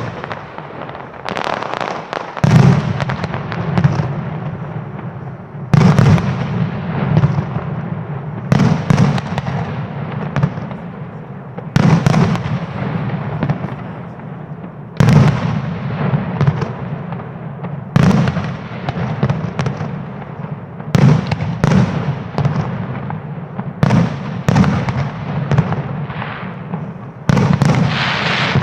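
Aerial firework shells bursting in a steady sequence, a loud bang roughly every three seconds, each followed by crackling that fades out.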